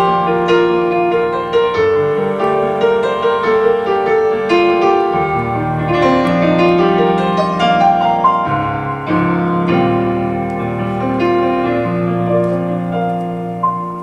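Piano interlude of a ballad, between sung lines, played back over Manger S1 active loudspeakers: a steady stream of struck chords and melody notes, easing off a little near the end.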